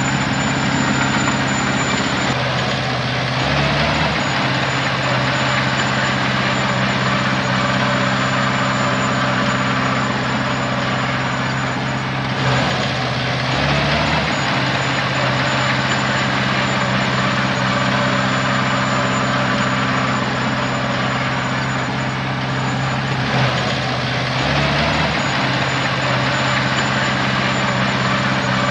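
Heavy diesel engine of earthmoving machinery running steadily, its low note briefly shifting about every ten seconds, with a thin high whine over it.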